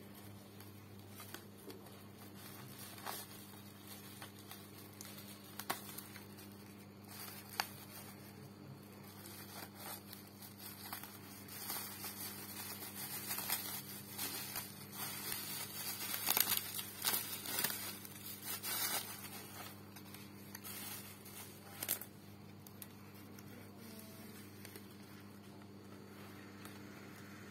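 Plastic bubble wrap crinkling and rustling as it is unwrapped from around a replacement phone screen, with scattered sharp crackles. It is busiest and loudest in the middle, then dies down near the end. A steady low electrical hum runs underneath.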